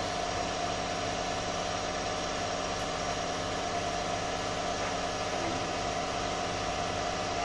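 Steady electric motor hum with a faint hiss from an industrial post-bed sewing machine standing at rest, not stitching.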